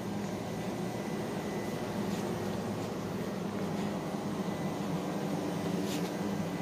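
Steady low mechanical hum of a store's background, with a few faint clicks and rustles from the phone being moved about.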